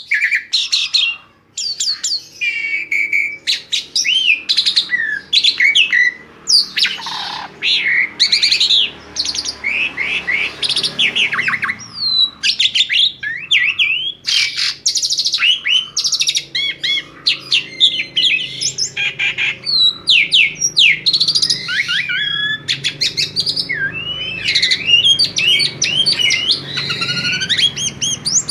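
Asian pied starling singing a long, varied song of chirps, whistles and quick gliding notes, with hardly a pause.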